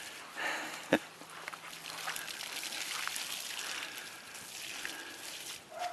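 Garden hose spraying water over a dog, rinsing its wet coat, as a steady hiss. A single sharp click about a second in.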